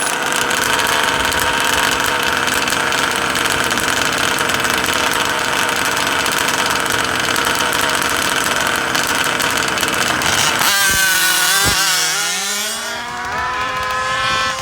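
Small two-stroke engines of gas-powered 1/5-scale RC cars running hard with a steady high buzz. About eleven seconds in, the engine pitch bends and drops as the throttle comes off, then wavers at lower revs.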